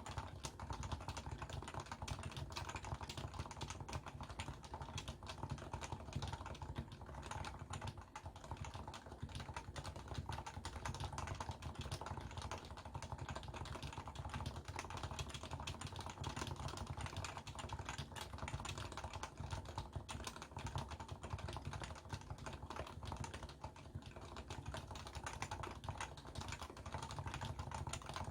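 Continuous fast typing on a Leopold FC660C keyboard with stock, non-silenced 45 g Topre electrostatic-capacitive switches, a dense run of keystrokes with no pauses, picked up by a phone's microphone.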